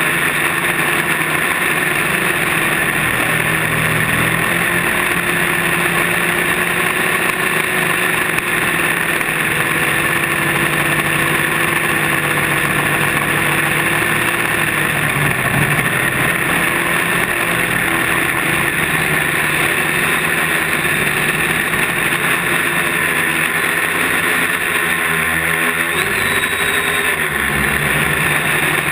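Quadcopter's electric motors and propellers humming steadily in flight, with the pitch shifting near the end as the motors change speed.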